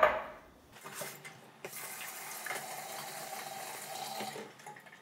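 Water running from a kitchen tap: a steady rush that starts about a second and a half in and stops shortly before the end, most likely water filling the pressure cooker.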